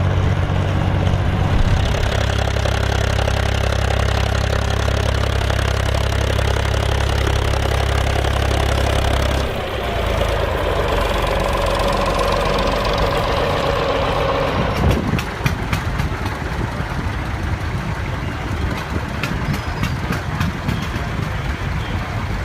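Volvo BM farm tractor diesel engines running while ploughing. A steady low engine drone changes abruptly about nine seconds in, a whine is heard for several seconds, and from about fifteen seconds on the engine sound turns rougher and clattering.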